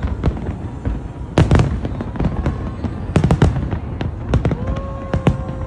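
Fireworks display: many sharp bangs of bursting shells in irregular clusters, over a continuous low rumble.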